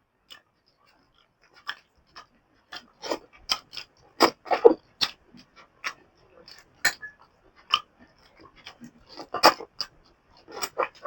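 Close eating sounds: a man chewing and smacking his lips in short, irregular bursts.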